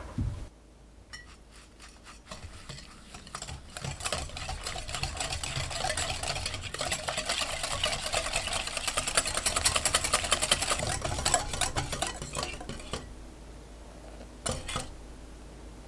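Wire balloon whisk mixing sugar into egg whites in a glass bowl: rapid clicking of the wires against the glass that builds up over several seconds and stops a few seconds before the end. A brief thump right at the start.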